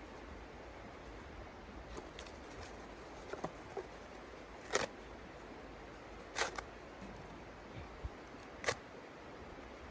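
A handful of short, sharp clicks or crackles, spaced irregularly a second or two apart, over a steady low hiss.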